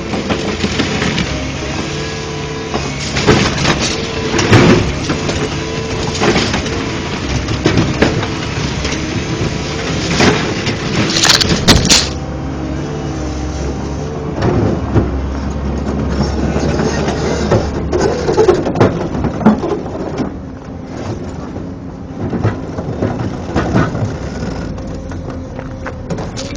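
Heavy hydraulic excavator's diesel engine running steadily under repeated crashes and cracks of demolition debris breaking and falling, heaviest in a few bursts.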